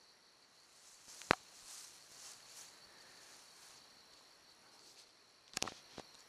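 Steady high-pitched chirring of insects in the grass. A sharp click comes about a second in, soft rustling follows, and a quick cluster of clicks comes near the end.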